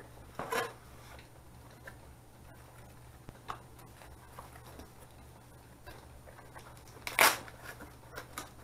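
Cardboard boxes being handled: an inner speaker box slid out of its carton and its flaps pulled open, giving a few short scrapes and rustles, the loudest about seven seconds in. A low steady hum underneath.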